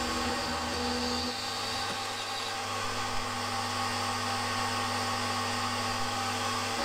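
Milling machine running steadily as its end mill cuts down the side of a metal conrod blank, a continuous motor whine with cutting noise.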